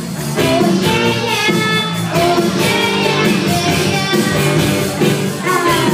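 A girl singing lead with a live rock band of electric guitars and a drum kit, the drums keeping a steady beat under the sung melody.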